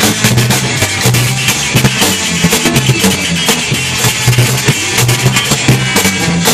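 Ska band playing live and loud: drum kit hits, electric guitar and bass guitar lines, with a trombone in the band.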